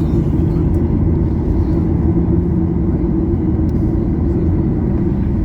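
Steady low rumble inside the cabin of a Boeing 737-800 taxiing on the ground: the jet engines at taxi power and the airframe rolling along the taxiway.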